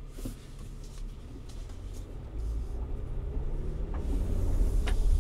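Inside the cabin of a 2023 Honda Pilot pulling away: a low rumble of the V6 engine and the road that builds steadily louder from about two seconds in, with a few faint clicks.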